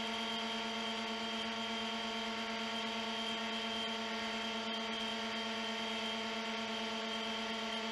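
A model hovercraft's motors and propellers running steadily, a continuous hum at one unchanging pitch, heard from a camera mounted on the craft.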